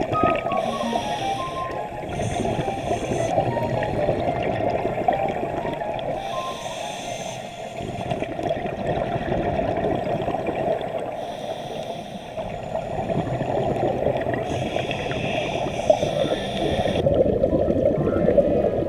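Scuba diver breathing through a regulator underwater: a bubbling, gurgling rush of exhaled bubbles, broken about every four to five seconds by a short hiss of inhalation.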